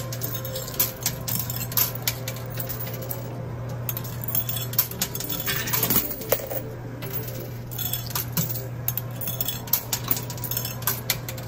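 Quarters clinking and sliding in a coin pusher machine: scattered sharp metallic clicks over a steady low hum.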